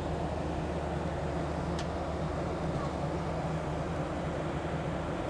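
Steady cabin drone of an airliner in flight: engine and airflow noise with a constant low hum. A faint click about two seconds in.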